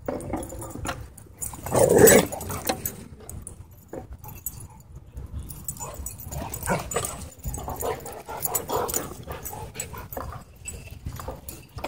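Dogs vocalizing during rough play-wrestling, with growls and whines and a loud outburst about two seconds in.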